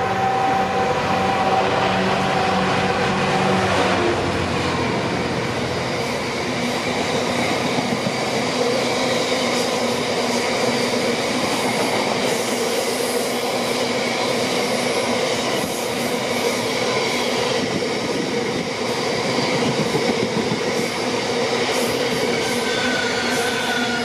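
A GB Railfreight Class 66 diesel freight train passing. The lead locomotive's engine is heard as a steady droning tone for the first four seconds. After that, a long rake of bogie box wagons rolls by with steady wheel-on-rail noise and faint wheel squeal. Near the end, the engine of the trailing Class 66 comes back in with a rising tone as it passes.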